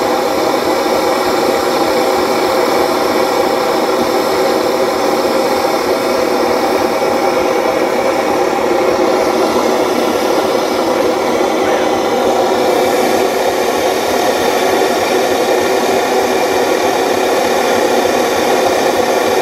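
Tractor engine running loudly and steadily at a constant pitch, with no rise or fall in revs.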